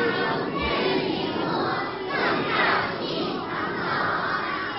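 A group of voices, mostly children, slowly chanting a classical Chinese poem together in drawn-out yinsong style, with the pitch gliding up and down on long-held syllables.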